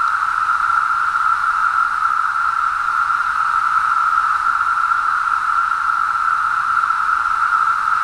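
Chorus of Brood X periodical cicadas: many insects calling at once in a loud, steady, unbroken drone.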